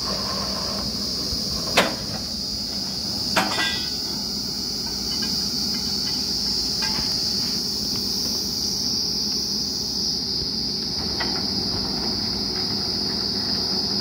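Truck-mounted borewell drilling rig running steadily, with a continuous high buzz over the engine's low rumble. Two sharp clanks come about two and three and a half seconds in, as the crew handles the rig and drill pipe.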